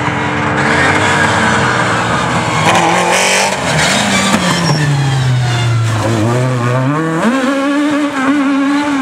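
Peugeot hatchback rally car engine. Its note falls steadily as the car slows into a tight coned corner, then climbs sharply a little after halfway as it accelerates hard out of the corner. It holds high revs near the end.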